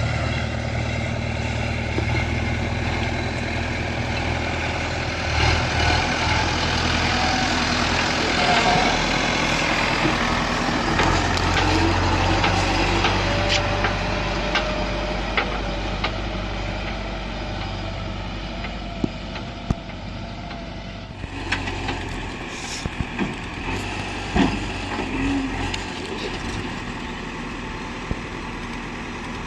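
Diesel engines of a JCB 3DX backhoe loader and farm tractors running at the dig, the engine note shifting up and down as the machines work, with scattered knocks in the later part.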